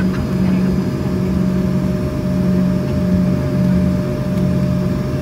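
Inside the cabin of an Embraer EMB-145 regional jet taxiing: the steady drone of its rear-mounted Rolls-Royce AE 3007 turbofans at idle thrust, with a low, slightly wavering hum under an even rush of noise.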